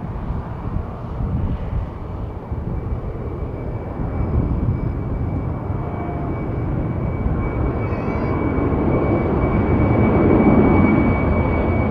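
Airbus A330-300 twin-engine jet climbing out after takeoff, its engines a deep rumble with a thin steady whine, growing louder as it comes nearly overhead.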